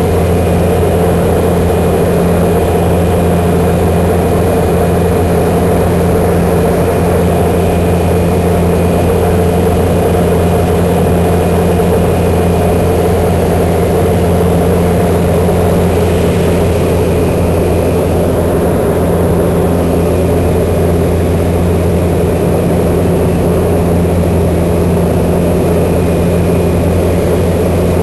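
De Havilland Canada DHC-2 Turbo Beaver's Pratt & Whitney PT6A turboprop engine and propeller running steadily at constant power: an even drone with a faint high whine.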